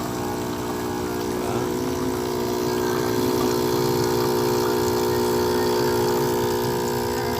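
Espresso machine's pump running with a steady hum as it dispenses hot water for an americano.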